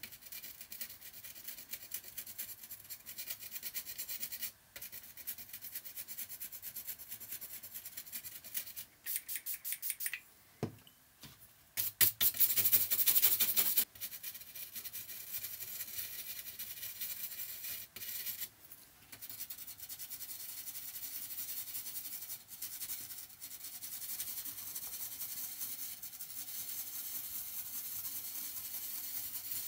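Fiberglass scratch pen scrubbing battery-leak corrosion off a circuit board's pads and traces: a continuous dry, high-pitched scratching in quick strokes. It grows louder for about two seconds near the middle.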